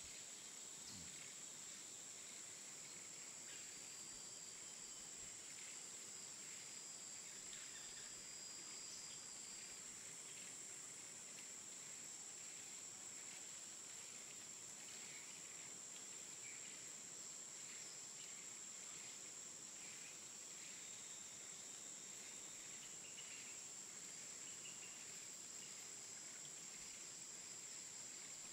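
Faint grassland ambience: insects droning steadily at a high pitch over a soft hiss, with a few short thin chirps now and then.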